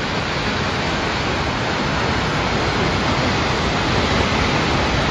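Steady rushing of Kegon Falls, a tall waterfall plunging down a cliff face.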